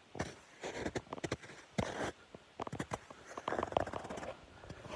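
Rubber boots crunching through icy, crusted snow: several footsteps, each a cluster of crackling crunches as the frozen crust breaks underfoot.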